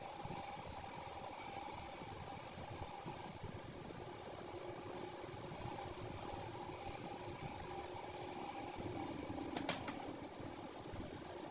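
Steady mechanical running hum, with a single sharp click near the end.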